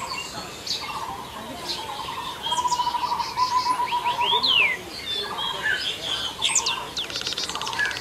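Several birds calling together: scattered high chirps and a few sharp downward-sweeping whistles over a lower, fast pulsed trill that runs through the first half.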